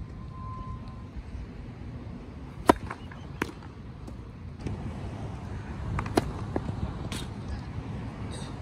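Tennis ball knocks on a grass court: one sharp racket strike a little under three seconds in, then a few lighter hits and bounces, over a steady low rumble.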